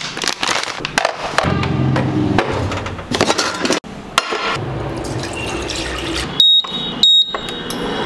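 Handling clatter of a pan, then water poured into a stainless steel saucepan, followed by two short high beeps from an induction cooktop's control buttons as the power is set.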